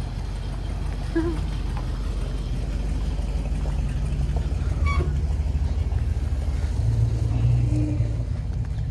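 Motorhome engine running with a steady low rumble while the vehicle is moved slowly, growing louder for a moment about seven seconds in.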